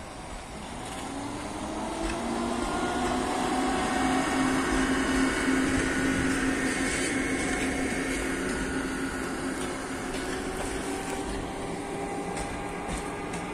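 Passenger coaches of a train hauled by an EP2K electric locomotive rolling past as the train slows into the station: a rumbling rush with several steady squealing tones that rise slightly at first and are loudest about five seconds in.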